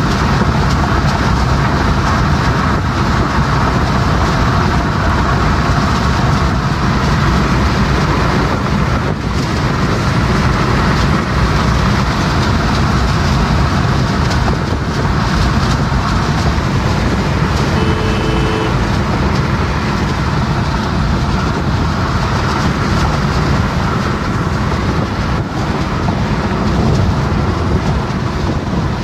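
Steady road, tyre, wind and engine noise inside a car's cabin cruising at about 125 km/h on a highway. A brief faint tone sounds about two-thirds of the way through.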